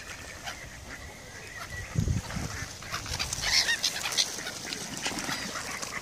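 Gulls and mallard ducks calling in a mixed flock as they are fed, with harsh cries crowding together about three to four seconds in. A low thump about two seconds in.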